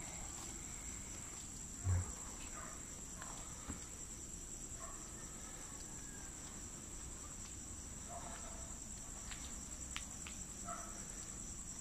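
Crickets chirring in a steady, high-pitched chorus, with a short low thump about two seconds in.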